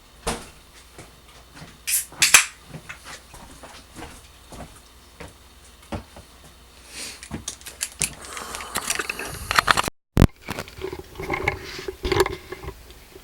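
Sharp snaps, clicks and crackly scraping as support material is picked and broken off a wood-filament 3D print. Two loud snaps come about two seconds in, with a denser run of crackling later on.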